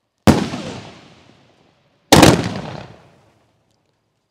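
Two loud bangs from a firework cake's aerial shots, about two seconds apart, each echoing away over a second or so.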